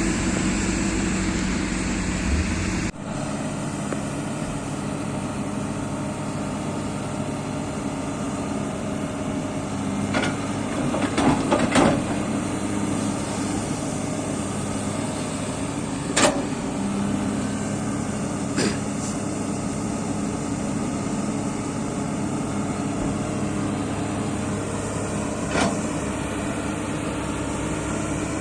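Excavator's diesel engine running steadily, its low rumble dropping away abruptly about three seconds in. Sharp metallic knocks and creaks from the machine come now and then, in a cluster about ten to twelve seconds in and singly after that.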